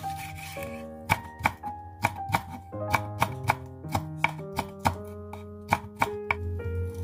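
Chef's knife julienning a deseeded red chili pepper on a wooden cutting board: a quick, uneven run of crisp blade taps on the board, about three to four a second.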